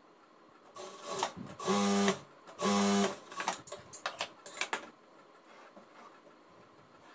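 Jack industrial lockstitch sewing machine running in two short bursts of about half a second each, a steady motor pitch with needle clatter. Quick rustles and sharp clicks follow as the fabric is handled.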